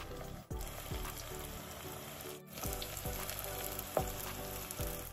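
Wonton dumplings deep-frying in hot oil in a wire fryer basket, the oil bubbling and sizzling steadily. The sound drops out briefly twice, about half a second in and near the middle.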